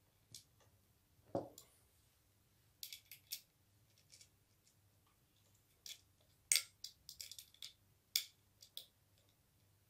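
Scattered small metallic clicks and ticks of hand tools and screws while the X-axis belt tensioner of a Creality Ender 3 Pro 3D printer is fitted and tightened. There is one duller knock about a second and a half in and a quick run of clicks around seven seconds in.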